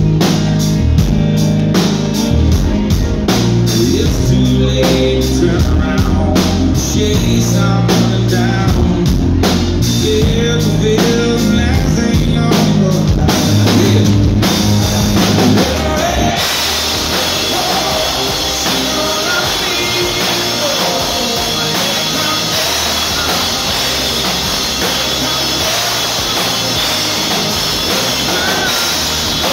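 Live country band playing a song, with a male lead singer, acoustic guitar, keyboards and drums. About halfway through, the heavy bass and drums drop back and the sound turns thinner and brighter.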